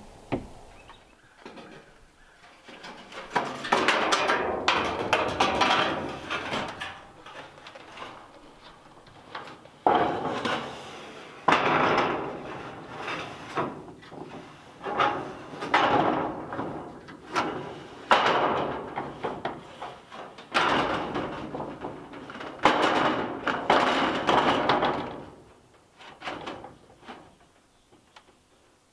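Corrugated metal roofing being handled: a series of scraping, rattling bursts of a second or two each, with short gaps between them, dying away near the end.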